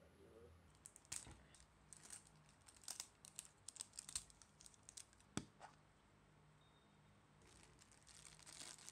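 Faint crackling and small ticks of a sticker seal band being peeled off a Kaiyodo round plastic gashapon capsule and the capsule being handled, then soft crinkling of a cellophane-wrapped toy near the end.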